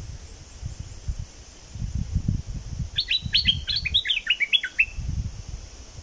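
Stripe-throated bulbul singing one quick phrase of about ten sharp, falling notes, lasting under two seconds and starting about halfway through. A low rumble runs underneath.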